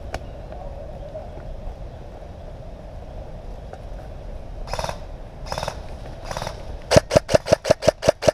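Airsoft guns firing: three single shots a little under a second apart about five seconds in, then a fast run of shots at about seven a second near the end.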